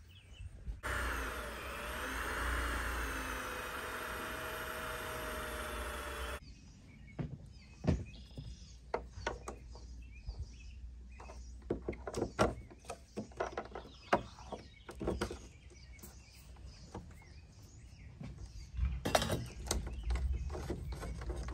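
A motor whines for about five seconds, its pitch dipping and then rising, and cuts off suddenly. Then a long run of sharp clicks and knocks as a solar panel on its mounting brackets is handled and set down on a fiberglass truck bed cap.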